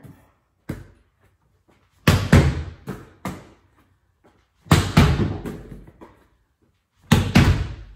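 A volleyball struck hard by hand three times, a loud slap each time, each followed by a few quicker thuds of the ball bouncing, with a short echo of a small room.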